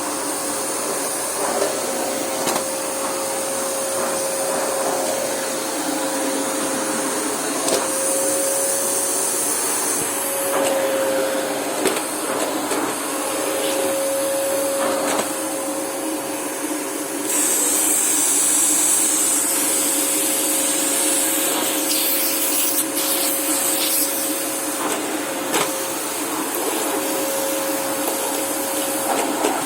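Unbranded FJ-188 600 W bagged vacuum cleaner running steadily: a constant motor whine over a rushing airflow hiss, with occasional light knocks. About halfway through, the hiss turns higher and louder.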